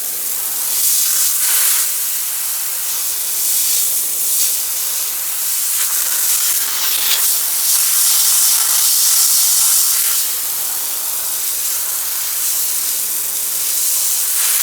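High-pressure hose nozzle shooting a jet of water into cracks: a loud, continuous hiss that swells and eases a little. The cracks are being flood-tested to find a leak into the basement.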